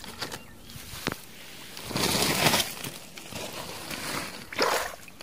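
Rustling and crinkling handling noise as a big pacu is lifted off a grassy bank beside a plastic rice sack, loudest about two seconds in, with a shorter burst near the end and a few light clicks between.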